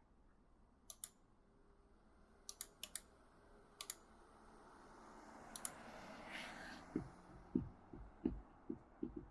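Slow, sparse keystrokes on a mechanical gaming keyboard. A few sharp, separate clicks come in the first four seconds, then a soft rustle, then a quicker run of deeper, duller key thuds in the last two seconds.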